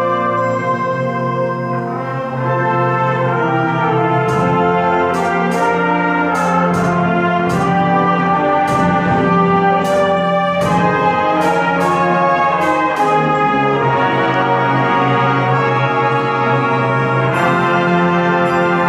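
Concert band playing, with brass carrying held chords over the ensemble. A string of sharp percussion strikes punctuates the music through the middle, and the texture changes shortly before the end.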